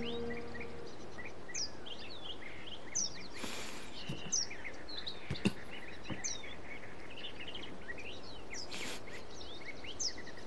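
Small songbirds chirping and twittering over a steady background hiss, with two brief swishing noises and one soft knock in the middle. A held music chord fades out at the very start.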